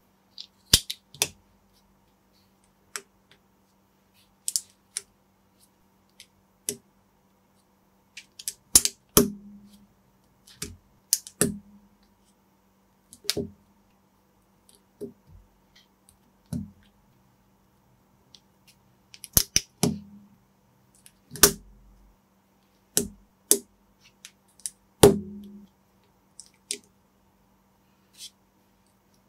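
Plastic building bricks being handled and clicked together: irregular sharp clicks and snaps, some with a short knock, over a faint steady low hum.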